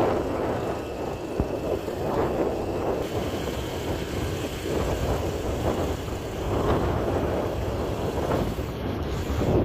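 Motorbike riding along with its engine running, under a steady rush of wind buffeting the microphone that swells and eases every second or so.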